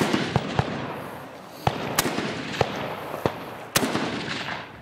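Rifle shots fired from the prone position during a timed practical-shooting stage: three loud cracks about two seconds apart, the first right at the start, with fainter cracks in between and a rolling echo after each.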